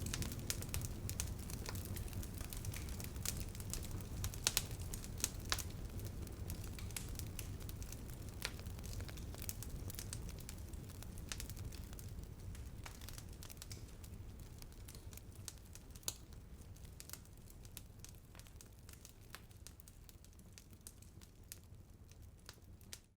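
Irregular soft crackles and clicks over a low rumble, fading out gradually and then cutting off at the end.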